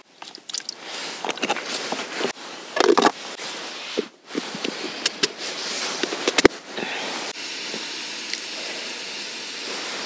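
Water poured onto an 80 g flameless heating pack in a BaroCook food warmer, the pack then fizzing and crackling as it reacts. The plastic lid is clipped shut with sharp clicks about six to seven seconds in, and a steady hiss holds through the second half.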